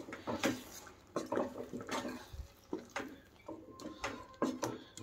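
A spoon stirring thick spinach purée into corn masala in a non-stick kadhai: irregular wet scrapes, with knocks of the spoon against the pan.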